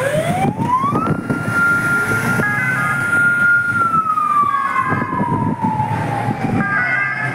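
A siren winds up in pitch over about a second, holds one steady high note for a couple of seconds, then slowly falls.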